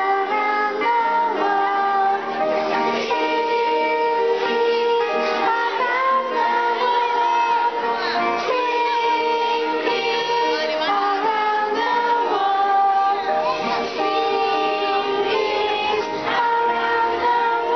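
A song with instrumental accompaniment, sung by children's voices together with a woman's voice, in steady held melodic lines.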